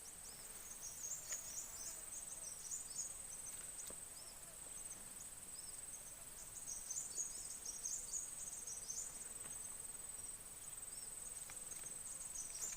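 Crickets or similar insects trilling in one steady, very high tone, with scattered short, high chirps coming in clusters, the first about a second in and more from about six seconds in.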